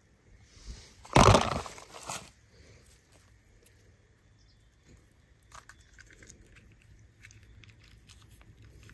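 Kinetic sand crunching and crumbling as fingers break open a packed block to dig out a buried toy car, with one loud short crunch about a second in and faint crackling and rustling after.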